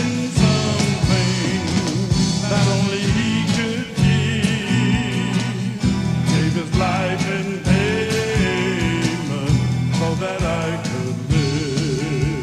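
Country-gospel band playing an instrumental break: a wavering lead melody line over bass and a steady drum beat.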